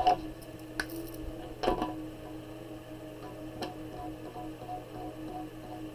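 A few light clicks and taps as a coloured marker or pencil is picked up and handled while colouring, over a faint steady hum.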